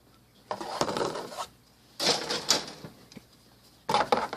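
Plastic model-kit sprues being handled, in three short bursts of rustling and clattering.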